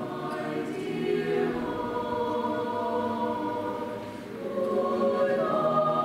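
Mixed choir of male and female voices singing sustained chords, dipping briefly about four seconds in and then swelling into a louder, higher held chord.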